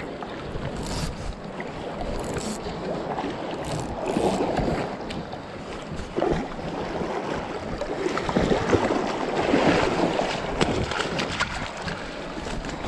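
Rushing river water with wind buffeting the microphone, a steady noise that swells and falls unevenly, loudest about four seconds in and again from about eight to ten seconds.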